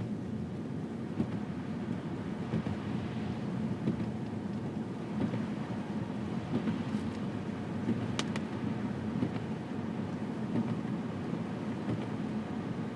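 Steady car engine and tyre noise heard from inside the cabin while driving on a snowy road, with a couple of faint ticks partway through.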